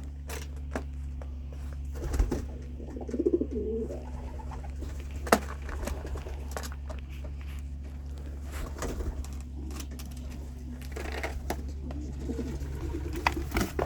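Racing pigeons cooing in a loft, several wavering coos over a steady low hum, with a few sharp clicks.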